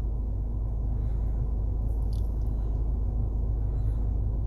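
Steady low rumble of a car engine idling, heard inside the cabin, with a couple of faint clicks about two seconds in.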